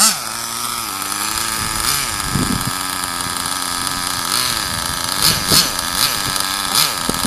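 A radio-controlled car's motor running steadily while the car sits still, its pitch dipping and rising briefly a couple of times. A few short sharp bursts of noise come near the end.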